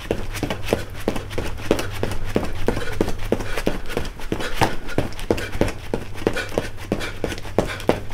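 Feet striking hard-packed dirt in a quick, even rhythm, several strikes a second, during high-knee running in place with a loaded barbell on the shoulders.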